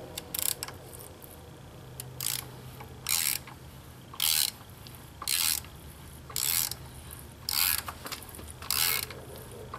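Ratchet wrench clicking in short bursts about once a second, each burst a quick run of pawl clicks as the handle swings back between turns of an M10x1.25 Heli-Coil tap that is cutting new threads into a drilled-out motor mount bolt hole.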